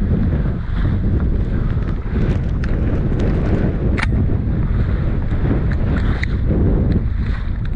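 Strong wind buffeting the microphone in a steady, heavy low rumble, with a sharp click about four seconds in.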